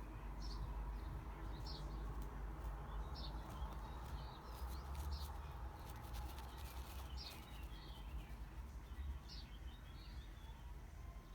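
A bird chirping: short high chirps about once a second, over a steady low background rumble, with a few faint clicks in the middle.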